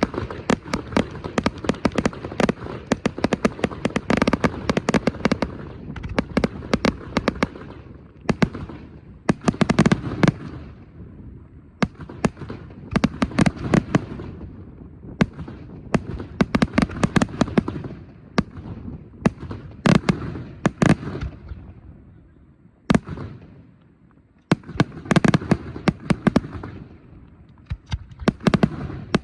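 Aerial fireworks display: rapid volleys of shell bursts and crackling reports, each with a rumbling echo, coming in dense waves with a short lull a little after the middle before another barrage.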